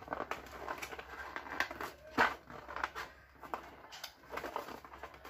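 Fingers picking and prying at a stiff cardboard box flap that won't open: irregular small taps, scrapes and clicks, the sharpest about two seconds in.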